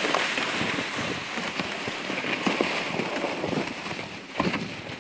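Plastic ice-fishing sled dragged over snow on lake ice, giving a steady, crackly scraping, mixed with footsteps crunching in the snow. A sharper knock comes about four and a half seconds in.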